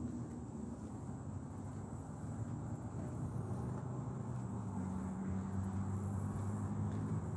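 Insects buzzing in the trees: a high, shrill chorus that pulses on and off in stretches of about a second. A low steady hum, like distant traffic, runs underneath and grows stronger about five seconds in.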